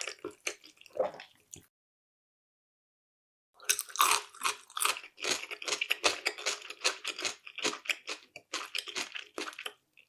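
Close-miked chewing of sushi: dense wet clicks and smacks of rice and raw fish being chewed, with a break of total silence of about two seconds near the start.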